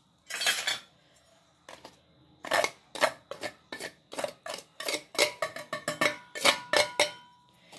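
Steel spoon scraping and clinking against a stainless steel plate as spice powders and paste are tipped into a steel mixing bowl: a run of short sharp scrapes and taps, coming thick and fast after about two and a half seconds, with a faint metallic ring near the end.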